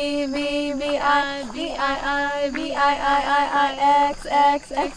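A woman singing, holding long notes with some slides in pitch, over light music.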